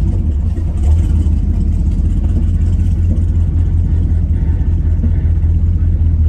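Chevrolet Camaro's engine and road noise heard inside the car's cabin, which has almost no soundproofing: a steady, loud low rumble while driving.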